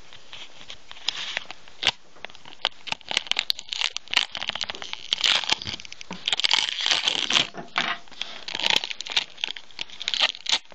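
Crinkling and crackling of adhesive tape and a plastic strip handled close to the microphone, with many sharp irregular clicks and scrapes, as metal specks are picked out of a subwoofer's magnet and voice coil gap.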